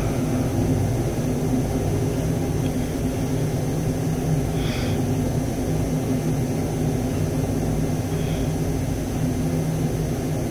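Steady low drone of running machinery, an even motor or engine hum that holds one pitch throughout, with a couple of faint short clicks about halfway and later on.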